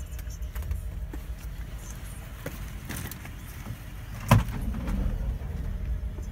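Mercedes-Benz Vito W638's 2.8-litre 104.900 V6 engine idling with a steady low rumble. A single sharp thump comes about four seconds in.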